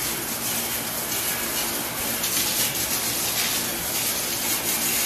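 Steady hiss of water spraying from a hose during kennel cleaning.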